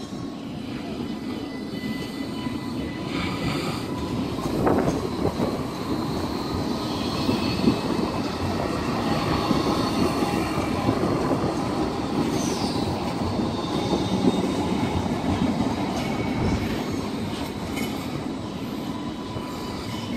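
Alstom Citadis light-rail trams running on street track: a steady rumble of steel wheels on rail, with a few knocks a few seconds in and a brief high, falling wheel squeal about twelve seconds in.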